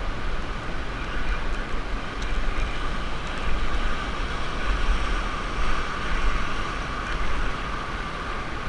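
Surf breaking and washing over rocks along the shore, an even rushing noise, with wind buffeting the microphone as a heavy, uneven low rumble.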